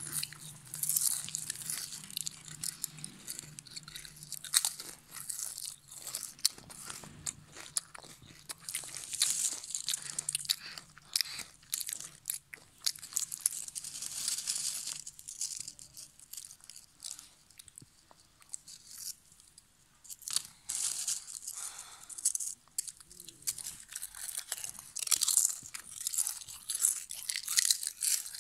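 Lay's potato chips being bitten and chewed close to the microphone: repeated bouts of crisp, crackling crunches with short quieter pauses between mouthfuls.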